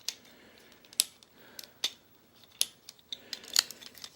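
Hard plastic transforming-robot toy parts clicking and snapping as they are handled and fitted together, with several sharp separate clicks.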